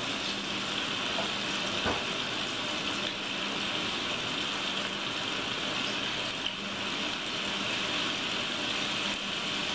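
Catfish pieces deep-frying in a pot of hot oil: a steady sizzle and bubbling, with a light tap about two seconds in.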